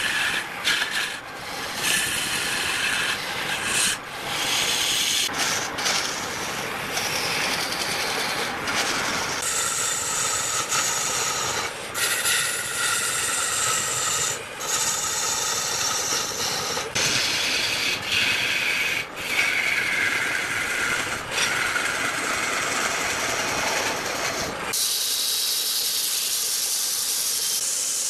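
A long-handled turning tool scraping into a large wood blank spinning on a lathe: a continuous rough, hissing cut whose pitch shifts, changing abruptly several times. About 25 seconds in it gives way to the steady, smoother hiss of a power sander held against the spinning wood.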